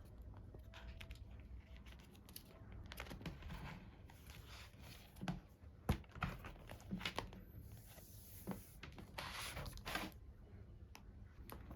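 Plastic packaging being handled close up: crinkling and rustling, with small clicks and taps and one sharper knock about halfway through.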